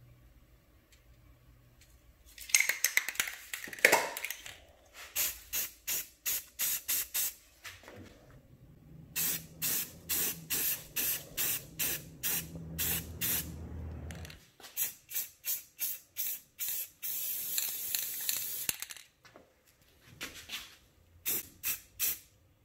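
Rust-Oleum Painter's Touch 2X aerosol spray paint hissing in quick short bursts, a few a second, with one longer continuous spray of about two seconds about three-quarters of the way in. A low hum runs under the middle part.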